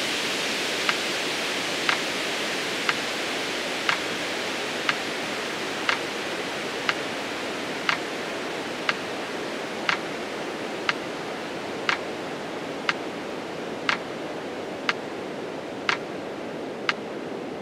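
Metronome ticking once a second, pacing the seconds of a 20-count exhale, over a steady rushing hiss that slowly grows fainter.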